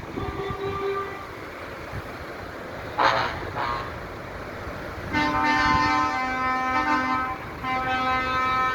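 Truck horns blowing long, held blasts, starting about five seconds in and sounding again near the end after a short break. A faint horn toot comes near the start, and a short hiss just after three seconds.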